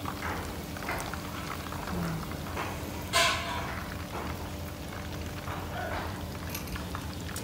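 Shrimp deep-frying in a wok of hot oil, the oil sizzling and bubbling steadily. A sudden, louder sound about three seconds in fades quickly.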